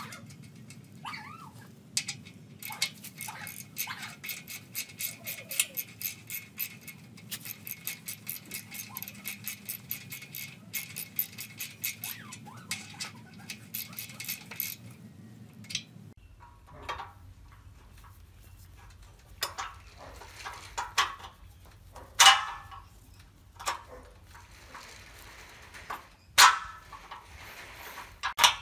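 Ratchet socket wrench clicking rapidly and evenly as a bolt is tightened into a steel frame, stopping about halfway through. Then a few separate sharp metal clanks as a steel bracket plate is handled against the frame.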